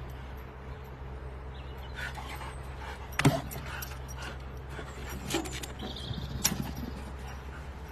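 A dog jumping onto a small board to snatch a tennis ball: a loud sharp knock a little over three seconds in and two smaller ones later, over a steady low hum.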